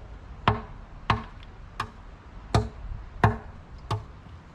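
A hammer striking a concrete catch basin wall, six hard blows about two-thirds of a second apart, each with a short metallic ring: knocking out a pipe opening along a ring of drilled holes.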